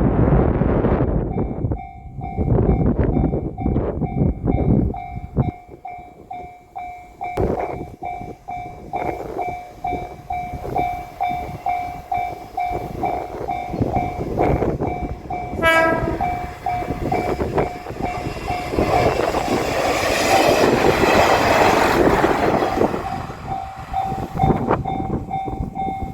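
Japanese level-crossing alarm ringing its repeating electronic 'kan-kan' tone while trains rumble and clack past. About 16 s in a train gives a short horn blast, and a train passes loudly for several seconds after about 19 s.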